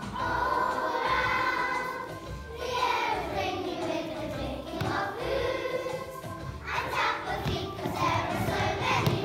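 A group of young children singing a song together, with music.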